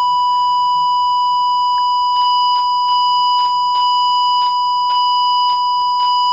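Steady 1 kHz square-wave test tone, buzzy with its overtones, played through the AWA Radiola 528MA's valve audio amplifier, with a faint hum beneath. From about two seconds in, faint irregular crackles come through as the tone control is turned to its high end; this tone control is faulty, hopping in resistance and causing instability in the amplifier.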